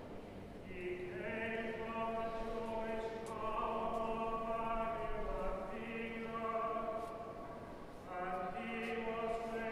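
A choir singing slow, chant-like music in long held notes, a new phrase beginning every two to three seconds.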